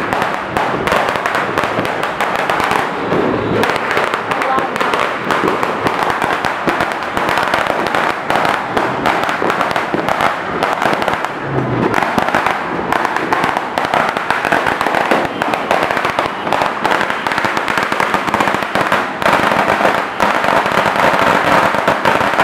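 Fireworks going off in a dense, continuous crackle of rapid firecracker pops.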